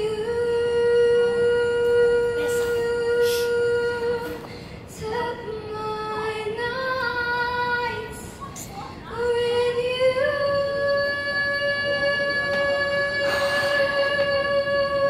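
A woman singing into a handheld microphone, holding long sustained notes: one long note at the start, a few shorter notes in the middle, then a long held note from about ten seconds in.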